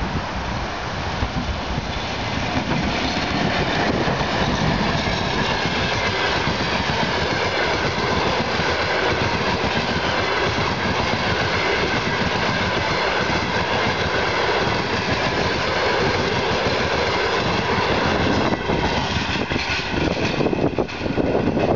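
ChS2 electric locomotive and its train of passenger coaches passing at speed: a loud, steady rumble of wheels running on the rails. The sound turns uneven near the end as the last coach goes by.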